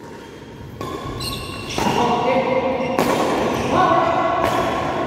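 Badminton rally on an indoor court: rackets strike the shuttlecock in sharp hits roughly a second apart, four in all, with players' voices calling in the hall.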